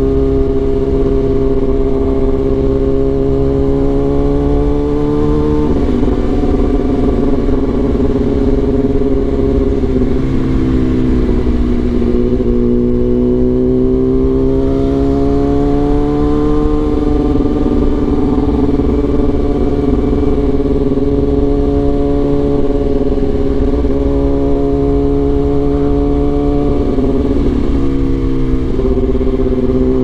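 Kawasaki Ninja ZX-10R's inline four-cylinder engine running under way as the bike rides through traffic. Its note rises and falls gently with the throttle, with a few brief breaks where the pitch steps.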